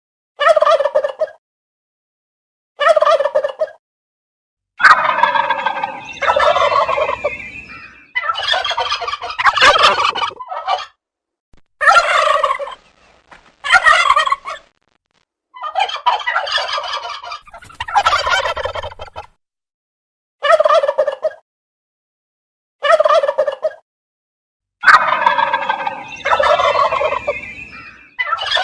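Turkey gobbling again and again: about a dozen short gobbles with silent gaps between them, and a few longer stretches of continuous gobbling.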